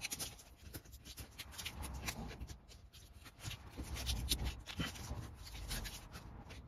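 Self-adhesive vinyl mask being peeled off a carved oak sign and crumpled in the hand: irregular crackly rustling with quick ticks, and a few dull bumps of handling.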